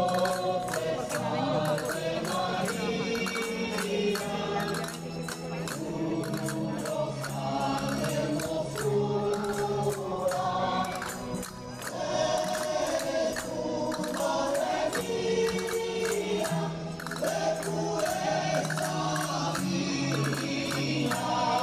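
Sevillanas-style song with a group of voices singing together over a steady beat of hand percussion.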